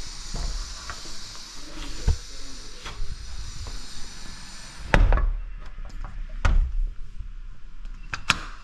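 A door being shut: a series of knocks and clunks, the loudest about five seconds in, after which a steady high hiss in the background drops away.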